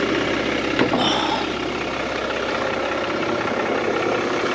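Toyota LandCruiser 300 Series twin-turbo V6 diesel idling steadily, with a single sharp knock about a second in.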